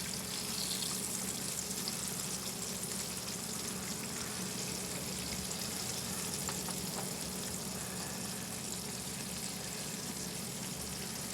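Battered pork chops frying in hot oil in a pan, a steady sizzle.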